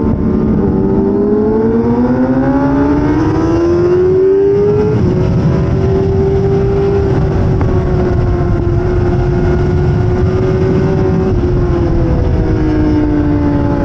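Suzuki GSX-R600 inline-four sportbike engine, heard from onboard, revving hard under acceleration with its pitch climbing for about five seconds, then held high and steady at speed, and dropping off near the end as the bike slows.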